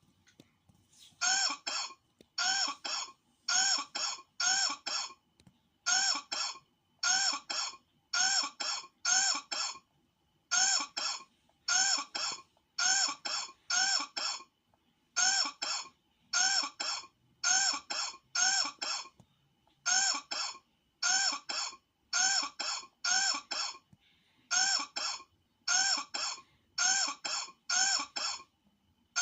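A cough sound effect looped over and over: the same short double cough repeats about once a second, in sets of four with a slightly longer pause between sets.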